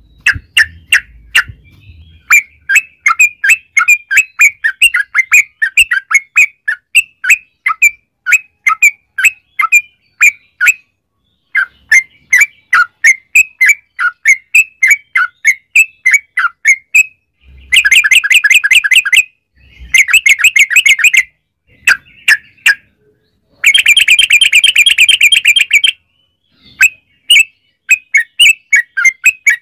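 Yellow-vented bulbul (trucukan) calling: a steady run of quick, sharp chirps, broken by fast rolling trills about 18 and 20 seconds in and a longer, louder roll from about 24 to 26 seconds.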